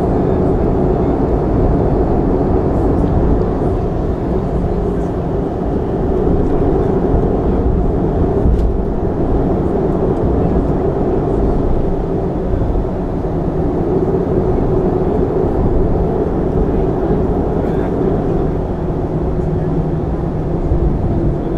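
Steady cabin noise inside a Boeing 737-300 with its CFM56-3 turbofan engines running: a constant low rumble with a faint high whine above it.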